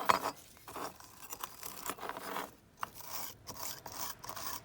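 Irregular scraping and rubbing strokes, stripped paint being scrubbed off a die-cast metal toy car body after soaking in caustic stripper.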